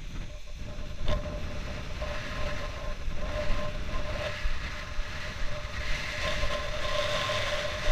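Wind rushing over an action camera's microphone, with a steady whistle-like tone running through it. The hiss grows stronger near the end.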